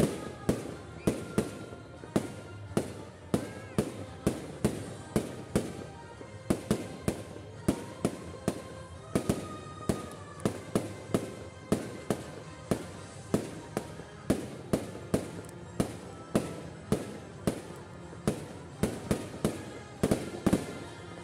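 Fireworks display: a rapid, continuous run of aerial shell bursts, about two sharp bangs a second, with music playing underneath.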